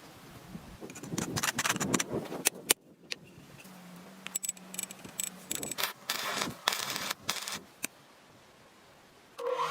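Workshop handling noises: irregular clinks, scrapes and clatter, like metal pieces or tools being picked up, set down and rubbed together, with a faint steady hum for a moment midway.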